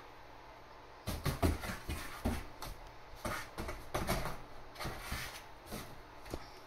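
A cat's claws and paws scrabbling and scratching against the inside walls of a large cardboard box, in quick irregular bursts with a few knocks, starting about a second in.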